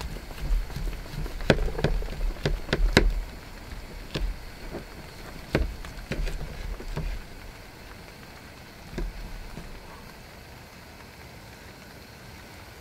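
Folding knife carving a roast beer-can chicken on a wooden cutting board: the crisp skin crackles and crunches in a run of sharp cracks, dense in the first seven seconds or so, then fewer and quieter.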